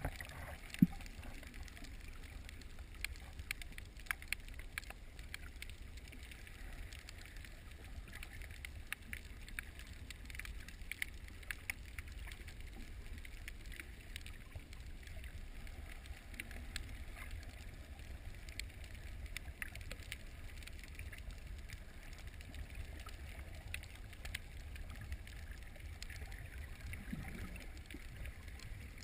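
Underwater sound of rough, surging water picked up by a submerged camera: a low steady rumble with many scattered small clicks and crackles, and one sharp knock about a second in.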